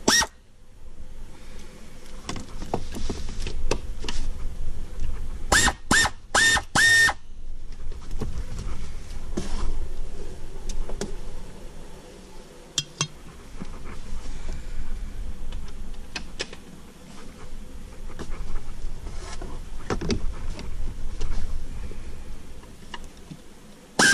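Air-powered wrench on an air hose run in four short trigger bursts about six seconds in, each a high whine. Scattered clicks and knocks of tools and metal parts, over a low rumble, fill the rest.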